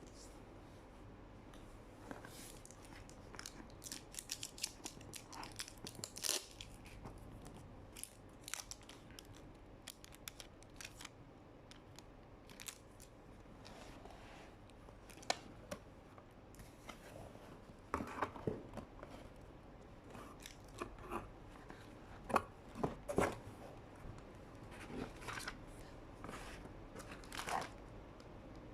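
Laptop box and packaging being opened and unpacked by hand: scattered clicks, light knocks and tearing of cardboard and wrapping, with a few louder handling knocks.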